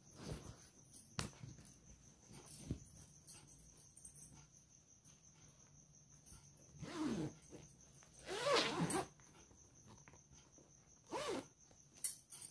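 Quiet handling of a fabric saree organizer bag: faint rustles and small clicks as it is unfolded and turned over. These are broken by three short sounds whose pitch bends, about seven, eight and a half and eleven seconds in.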